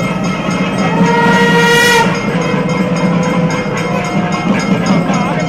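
Nadaswaram, the South Indian double-reed temple pipe, playing over a steady drone: one loud held note from about one to two seconds in, then curling, ornamented phrases.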